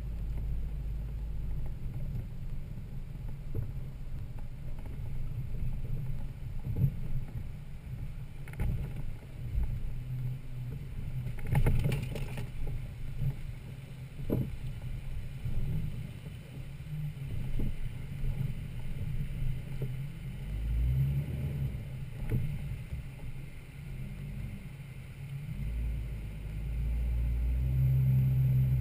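Toyota Land Cruiser FZJ80's straight-six engine running at low speed on a rough off-road trail, with scattered knocks and clunks from the truck, the loudest a short clatter about twelve seconds in. The engine gets louder near the end.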